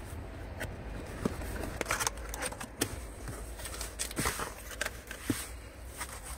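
Cardboard box flaps being opened and foam packing handled: scattered rustles, scrapes and light knocks of cardboard and foam.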